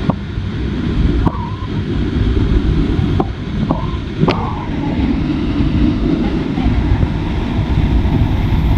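Steady low rushing noise of the waterfall's water, with a few short clicks and knocks in the first half.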